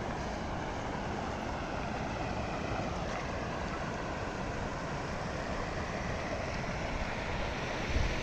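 Steady rushing road and wind noise of a moving vehicle.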